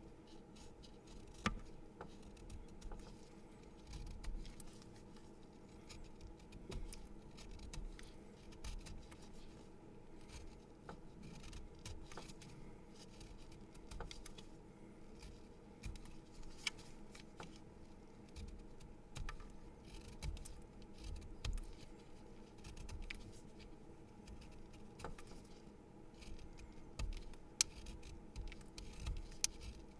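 A pencil being sharpened: irregular small clicks and scraping as the blade shaves the wood, with now and then a soft low thump.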